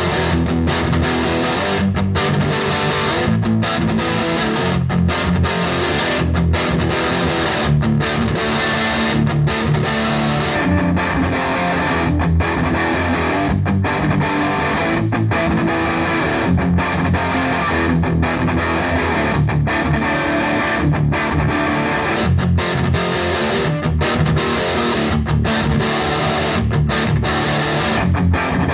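Overdriven electric guitar: a Gibson Les Paul with 490/498 humbuckers played through a Marshall DSL40C tube combo amp in a crunch tone. Rhythmic chord riffing with brief, regular breaks between phrases, recorded on a phone microphone.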